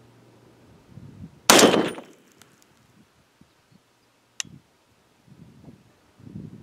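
Two 6.5 Creedmoor rifle shots just under three seconds apart. The first, about a second and a half in, is a loud crack with a short echo tail. The second, near the middle, is a much thinner, sharper report.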